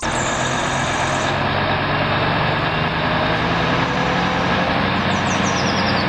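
Diesel engine of a Mercedes-Benz concrete mixer truck with a pump boom, running steadily.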